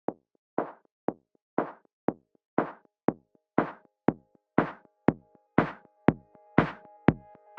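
Electronic background music: a steady drum-machine beat of alternating kick and snare-like hits, about two a second. Held synth chords come in about six seconds in.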